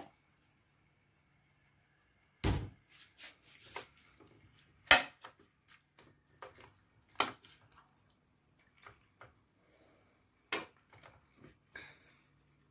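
Cookware and utensils clinking and knocking in a kitchen as chicken goes into the pot to sauté: a dozen or so irregular sharp strikes starting a couple of seconds in, the loudest about five seconds in.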